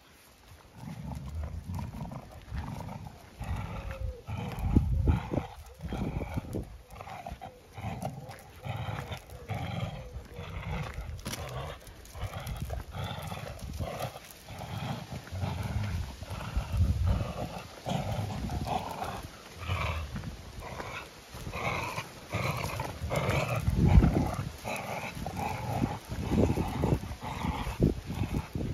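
A German Shepherd and a black puppy growling over and over as they play tug of war with a scrap of timber, paws scuffing on gravel. The growls come in short rough bursts, loudest about five seconds in and again near the end.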